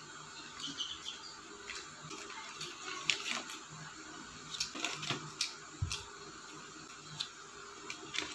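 A paper fry bag and cardboard box being handled as fries are picked out and eaten: irregular soft crinkles and sharp little clicks, a cluster of them around the middle.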